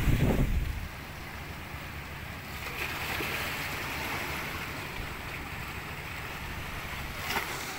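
Strong wind buffeting the microphone with a loud low rumble for about the first second, then a steady rush of wind and sea.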